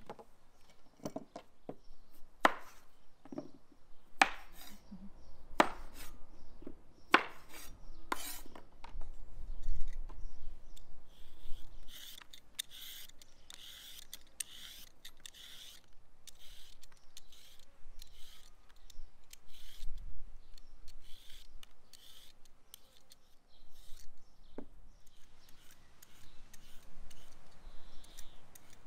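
A vegetable peeler scraping the skin off a raw carrot in a run of quick, evenly spaced strokes, after a series of sharp knocks as vegetables are handled on a wooden table.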